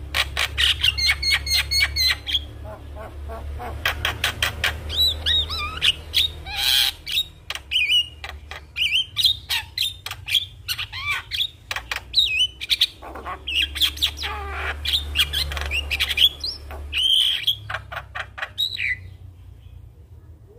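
Javan myna singing a fast, varied song: a dense stream of chirps, rapid clicks, whistled glides and squawks, dying away near the end. A low hum runs under it in stretches.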